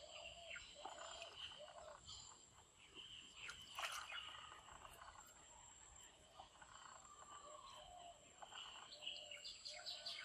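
Near silence: faint outdoor ambience of birds calling in short repeated notes over a steady high-pitched insect drone.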